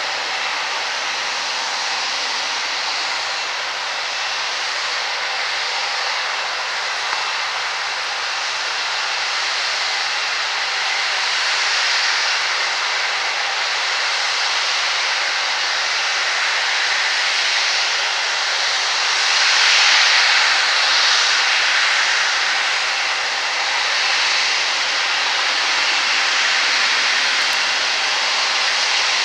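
Boeing 787-8's Rolls-Royce Trent 1000 turbofans at take-off thrust during the take-off roll and lift-off: a steady rushing jet noise that grows louder and peaks about two-thirds of the way through.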